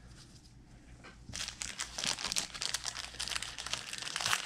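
Crinkling of a trading-card pack wrapper handled by gloved hands as it is opened. It starts about a second and a half in and goes on as dense, rapid crackles.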